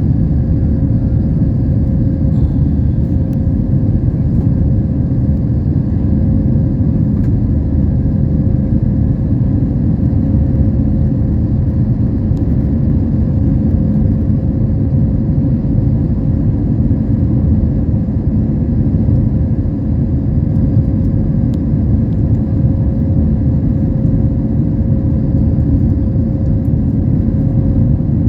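Jet airliner cabin noise in flight: a steady, loud low rumble of engines and airflow with a constant hum in it.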